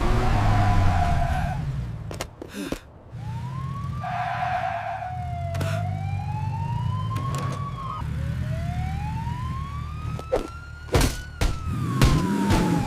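Police car siren wailing, its pitch sweeping slowly up and down, over a running car engine, with a few sharp knocks.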